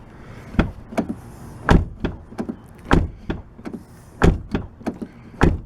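Car door being shut over and over, about five solid thuds a little over a second apart as the plastic latch catches the striker post, with lighter latch and handle clicks in between. The latch has just been sprayed with silicone lubricant.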